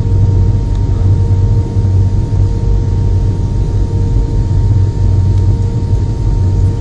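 Airliner cabin noise in flight: a steady, loud deep rumble of the engines and airflow, with a constant mid-pitched hum over it.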